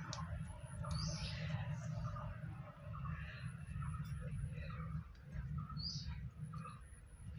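Birds chirping now and then, with short high chirps about a second in and again near the end, over a steady low rumble.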